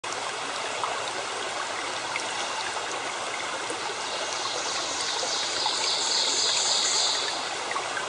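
A steady rushing noise, like running water, that brightens into a louder hiss from about four and a half seconds in until shortly before the end.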